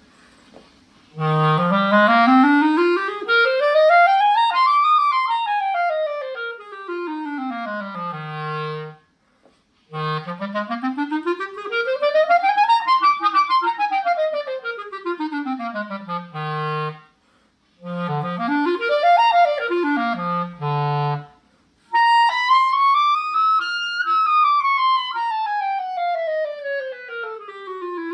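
Clarinet with a Legere European cut synthetic reed, size 3 1/4, playing scale runs. Each run climbs from the lowest notes about three octaves and comes back down; one is tongued note by note, one goes quickly up and down, and the last falls from a high note. The player finds the reed easy blowing and easy to articulate, and the tone a little darker.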